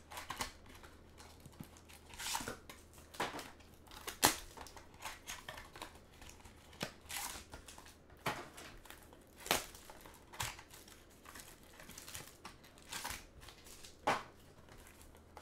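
Clear plastic wrap and foil trading-card packs crinkling and tearing as they are unwrapped and handled, in short irregular rustles with a few sharper crackles.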